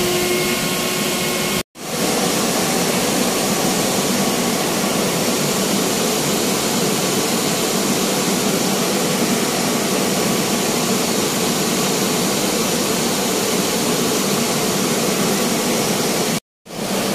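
Industrial snail-shell blower (air mover) running steadily, a loud even rush of air drying a shampooed mattress, with a faint pitched motor whine in the first second. The sound drops out briefly twice, about two seconds in and near the end.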